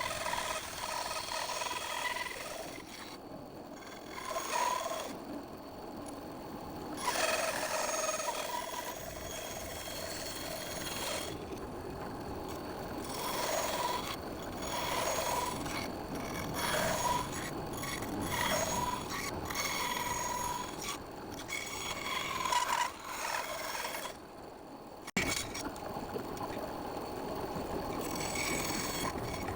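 Bandsaw cutting a pattern out of wood: the steady whine of the running saw under a rasping cut that comes and goes as the piece is fed through, easing off for a second or two several times.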